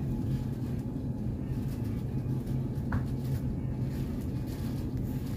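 A steady low hum with handling noise, and a brief rising chirp about three seconds in.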